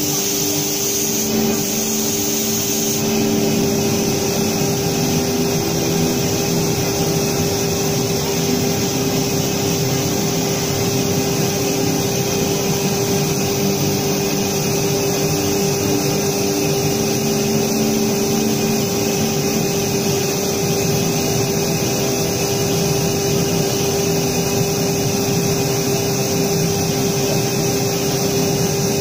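CNC router spindle running with a steady, even whine while its bit cuts through a sheet, along with a constant cutting hiss.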